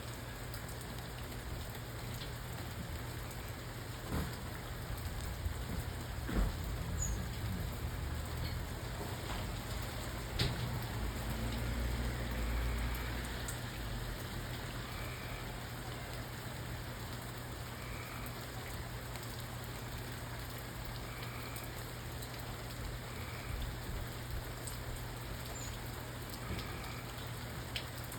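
Steady rain falling on a surface, with a few louder drips and a low rumble that swells briefly about halfway through.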